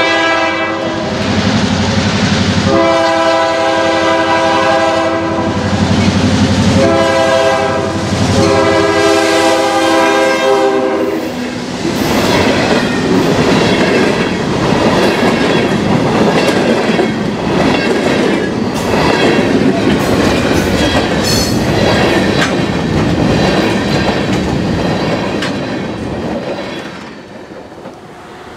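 A diesel locomotive's multi-chime air horn sounds a long, long, short, long pattern, the grade-crossing signal, as the freight train approaches. The locomotive then passes, and freight cars roll by with a steady rhythmic wheel clatter over the rail joints and a brief high squeal about two-thirds of the way through. The clatter fades near the end.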